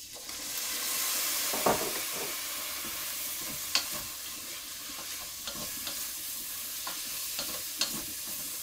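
Soy sauce poured into hot rapeseed oil around frying tofu: a loud sizzle that flares up within the first second as the pan is deglazed, then settles into steady sizzling. A wooden spoon stirs the tofu, knocking sharply against the pan a few times.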